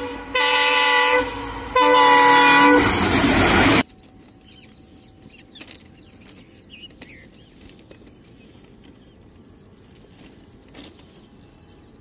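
Indian diesel locomotive horn sounding two loud blasts, with the rumble of the train that cuts off abruptly about four seconds in. After that only quiet trackside background with birds chirping.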